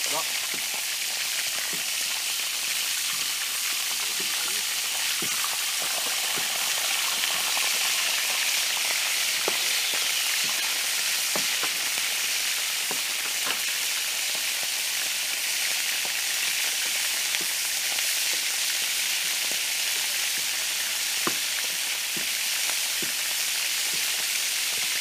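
Adana kebab meat sizzling steadily in a pan over a wood campfire, frying in its own juices, with occasional sharp pops.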